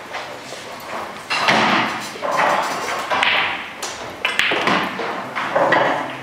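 Pool balls clicking: the cue strikes the cue ball and the balls knock against each other, with several louder bursts of hiss-like noise around them.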